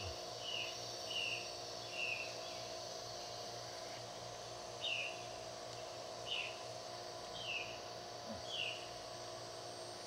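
Rainforest ambience: a steady hiss and hum of background noise, over which an animal gives a series of short, high calls that fall in pitch, about one a second, with a pause of a few seconds in the middle.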